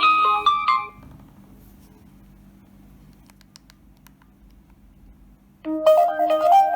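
Maxvi T5 mobile phone playing its preset ringtones: one electronic melody stops about a second in, and after a pause of several seconds holding only a low hum and a few faint ticks, the next ringtone starts near the end.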